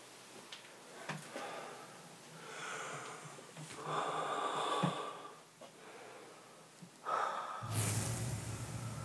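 A person's heavy breathing and gasps, a few breaths a second or more apart. Near the end a low drone and a hiss swell in.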